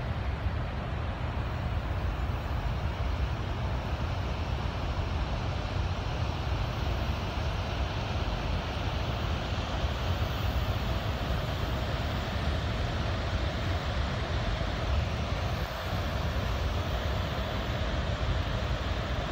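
Steady rushing roar of water pouring from the outlets at the base of Wolf Creek Dam into the river, with a deep rumble underneath.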